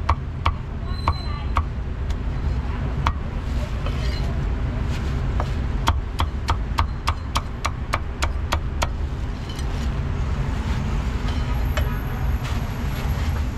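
Meat cleaver chopping pork on a thick wooden chopping block: a few single chops, then a quick run of about four chops a second for several seconds. A steady low rumble of street traffic runs underneath.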